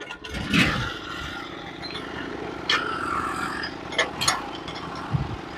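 Small engine of a Norwood manual sawmill idling steadily, with a few sharp knocks and clicks, about half a second in and twice around four seconds, as the saw head is lowered to the next cut height.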